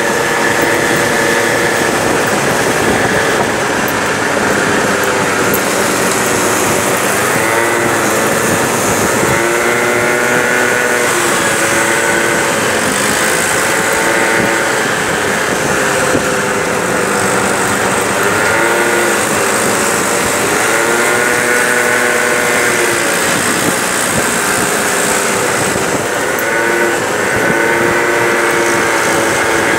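Peugeot Jet C-Tech 50cc scooter engine running while riding in city traffic, its pitch rising and falling over and over as the throttle is opened and eased off, over a steady rushing noise.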